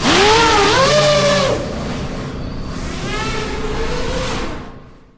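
FPV quadcopter's brushless motors whining, the pitch swooping up and down with the throttle, then fading out near the end.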